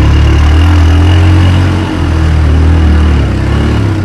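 ATV engine running hard under throttle, held on the gas through a deep mud hole, with a brief dip in level about two seconds in.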